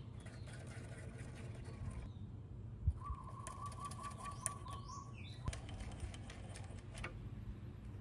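Small scattered clicks and taps of a tiny screwdriver working grease into the axle holes of aluminium scooter fork legs, with one dull thump about three seconds in. Outdoor birds call over a steady low background: a short rapid trill in the middle and a brief high chirp just after.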